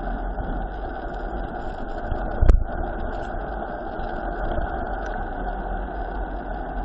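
Wind rushing and buffeting over the microphone of a camera on a mountain bike descending at speed, a steady rumbling roar, with one sharp thump about two and a half seconds in.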